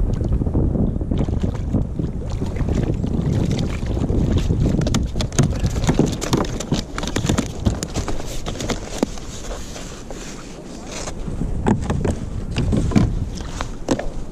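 Wind buffeting the microphone and choppy water lapping at a sit-on-top kayak, with many scattered clicks and knocks as a small dogfish is brought aboard and handled.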